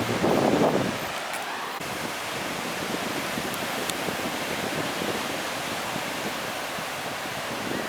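Sea surf washing steadily, with wind noise on the microphone; a louder surge in the first second.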